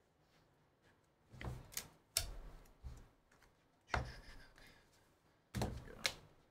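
A handful of sharp clicks and knocks, the loudest about two and four seconds in: trading cards in plastic holders being gathered and tapped together on a table.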